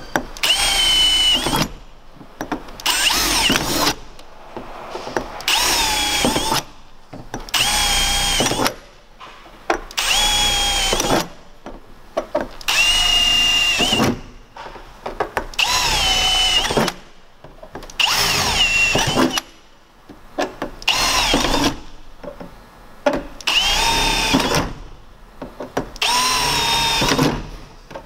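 Cordless drill with a 3/16-inch bit punching holes through a steel van roof panel: about a dozen short bursts, each whine rising as the motor spins up, with brief pauses between holes.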